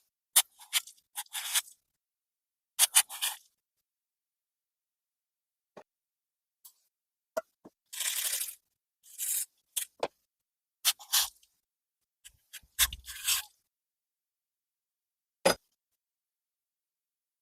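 Small parts being handled: scattered sharp clicks and knocks, with short scraping sounds about eight and nine seconds in and another cluster near thirteen seconds.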